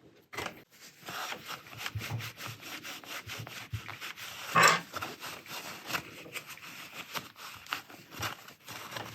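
Old overlocker's freshly greased acetal plastic mechanism being turned over by hand, a dense run of rubbing clicks and scrapes with one louder knock about halfway through.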